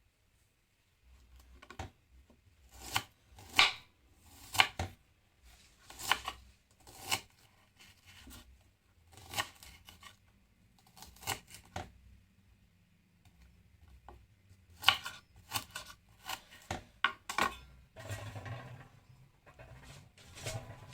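Knife chopping food, single sharp strokes at an uneven pace of about one a second, followed near the end by a rougher scraping.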